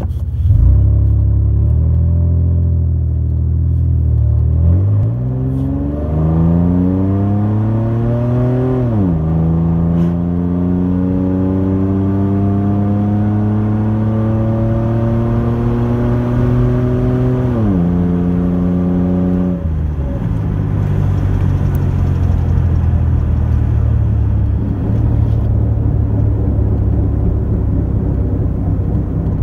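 Loud straight-piped exhaust of a 3rd-generation Toyota 4Runner running with no muffler, heard from inside the cab. It idles low, then the note climbs as the truck accelerates, drops at an upshift about nine seconds in, climbs again and drops at a second upshift past halfway, then eases off into a steady low drone.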